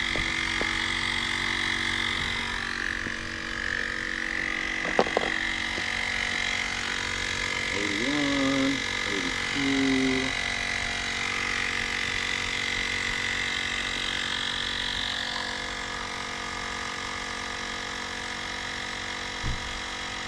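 Electric tire inflator running steadily, pumping a tire up to seat the bead; it cuts off suddenly at the end.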